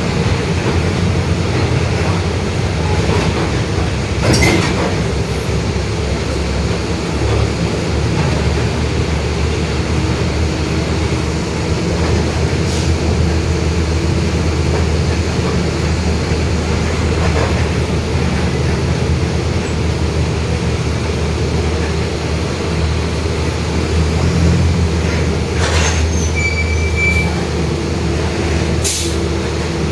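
Mercedes-Benz OF-1721 city bus under way: a steady diesel engine drone and road rumble, with the whining ('roncando') differential held as a tone through the middle and again near the end. A few sharp knocks and rattles come in, and a brief high beep sounds near the end.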